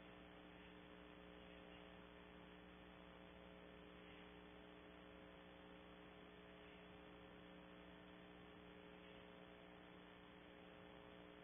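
Near silence: a faint, steady electrical hum of several low tones over hiss, picked up by the wildlife camera's audio feed.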